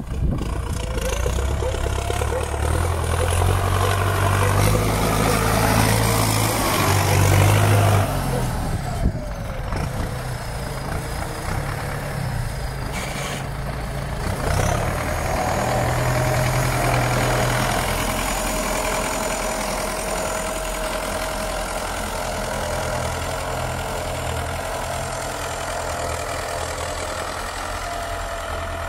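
MTZ-82 Turbo tractor's diesel engine working as it pushes snow with its front blade. It pulls harder over the first several seconds, drops back about eight seconds in, then pulls again, with a steady high whistle above the engine through the second half.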